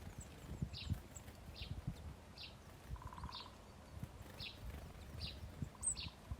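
A small songbird repeating a short, high chirp about once a second, over irregular low knocks and rustling.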